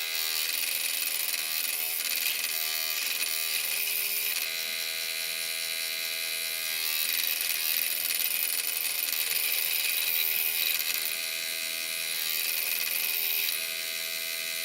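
Electric saw running and cutting a piece of purpleheart wood, its pitch shifting several times during the cut. It stops abruptly at the end.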